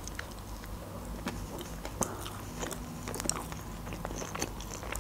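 Biting into a KFC chicken burger with a breaded fillet, then chewing it: a run of small, scattered wet mouth clicks.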